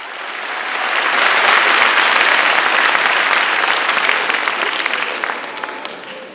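Audience applauding in an auditorium, swelling over the first second or two and dying away near the end.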